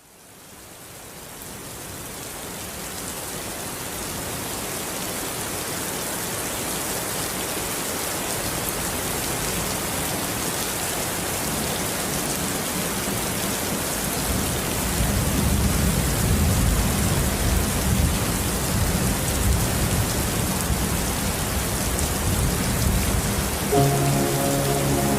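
Steady rain falling, fading in from silence over the first few seconds. A low rumble joins in from about halfway through, and soft sustained music tones come in near the end.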